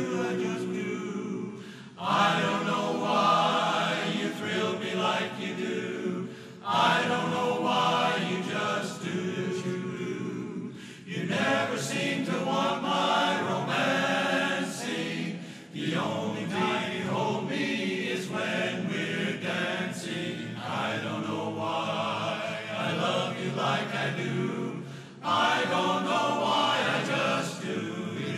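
Men's barbershop chorus singing a cappella in close four-part harmony, in long sung phrases with short breaks between them.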